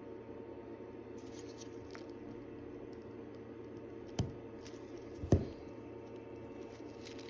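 Watchmaker's tweezers and small tools handling a watch movement on the bench: faint scratchy handling, then two sharp clicks about a second apart, over a steady background hum.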